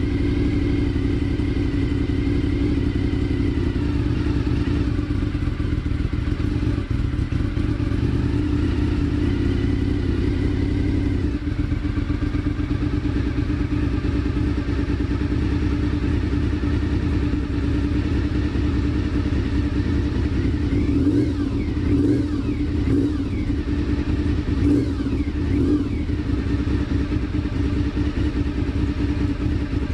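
Honda VFR 750's V4 engine idling steadily while it warms up its oil before an oil change. About two-thirds of the way through it is briefly revved several times in quick succession, each rev rising and falling back to idle.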